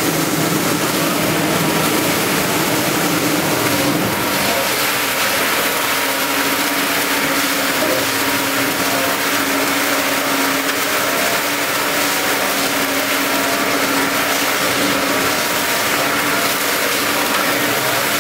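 Ginger washing and peeling machine running: its steel spiral auger turns the ginger over brush rollers under water sprays, a steady motor hum under an even hiss of spraying water. The hum drops slightly in pitch about four seconds in.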